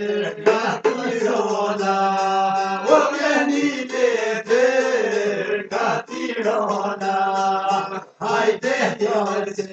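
Men singing an Albanian folk song in chant-like phrases, with long held notes about two and seven seconds in, to a qifteli, the two-string Albanian long-necked lute, strummed quickly underneath.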